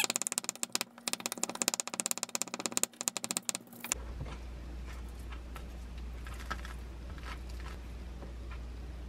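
Wooden spatula rapidly tapping and scraping against a glass bowl while mashing boiled egg and kabocha squash. About four seconds in it cuts to a steady low hum with a few soft scrapes as the mashed filling is spread on toast.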